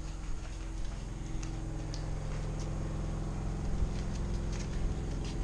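Steady low mechanical hum, like a motor running, with light scattered clicks of footsteps in flip-flops on tile and paving.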